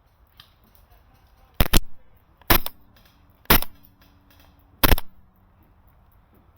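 Airsoft gun firing five loud single shots at an irregular pace, the first two in quick succession.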